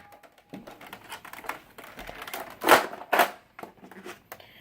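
Plastic Nerf blaster being handled: light clicks, taps and rustling, with two louder short bursts a little past halfway.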